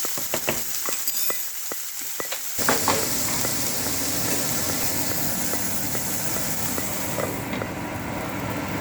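Food sizzling in hot oil in a pan, with sharp clicks of a spatula stirring against the pan; about two and a half seconds in, the sizzle thickens and grows louder and holds steady.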